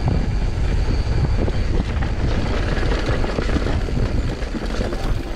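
Mountain bike riding down a dirt trail, heard through an action camera's microphone: a steady low rumble of wind and tyres with many small knocks and rattles from the bike.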